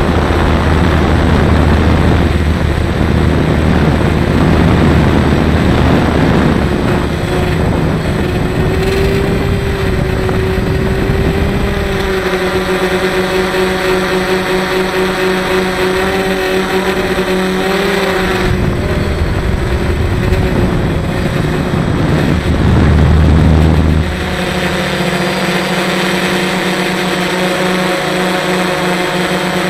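DJI Phantom quadcopter's motors and propellers whining steadily, heard from the camera mounted on the drone, with a low rumble of wind on the microphone at the start and again shortly before the end. The pitch of the motor tones shifts about twelve seconds in and again near twenty-four seconds.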